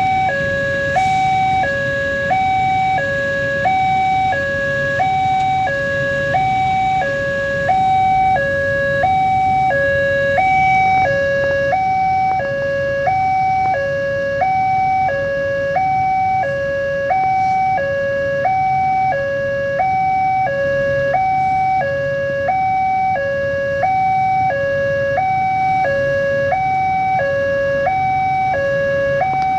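Electronic two-tone warning alarm of a railway level crossing, sounding steadily and alternating a high and a low tone about once a second. Under it is the low, steady rumble of a freight train's wagons passing over the crossing.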